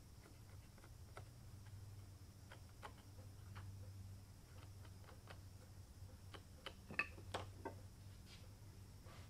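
Faint, scattered light clicks and taps of wood on wood as a small walnut seat piece is handled and fitted into a hand-carved cypress toy canoe, with a cluster of sharper clicks about seven seconds in, over a low steady hum.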